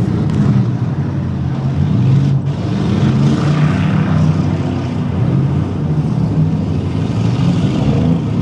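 Engines of several straight-stock demolition derby cars running and revving loudly, rising and falling unevenly, with a blurred mix of exhaust noise.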